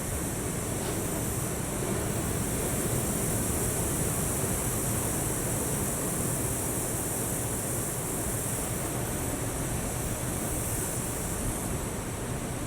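Ocean surf washing in a steady, continuous rush, with a constant high hiss over it.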